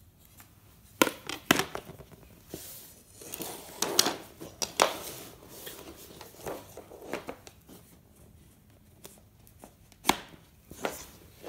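Wooden rocket guide sticks and their plastic sleeves being handled and set down on a hard floor: several sharp clacks, with rustling and scraping in between.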